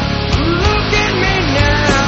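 Loud rock music, with a melody line sliding up and down in pitch.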